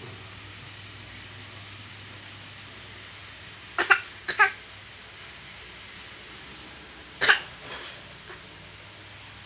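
A 10-month-old baby's pretend coughs, made for attention: two short coughs about four seconds in, then a louder cough and a softer one a few seconds later.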